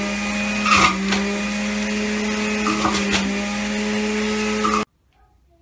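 Electric juicer motor running with a steady hum while vegetable pieces are pressed down into it, with a few short crunches as they are shredded. The motor switches off suddenly about a second before the end.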